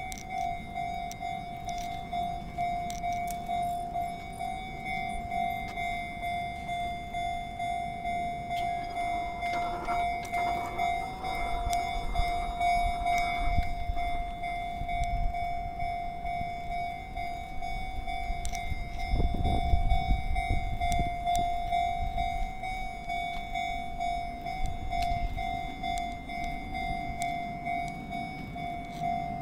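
Japanese railway level-crossing warning bell ringing steadily in regular repeated strokes while the crossing is closed. A train rumbles past in the middle stretch, loudest about twenty seconds in.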